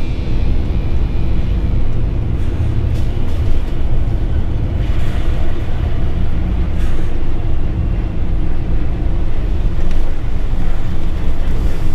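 Articulated HGV lorry on the move: steady low rumble of its diesel engine and tyres, with background music playing underneath.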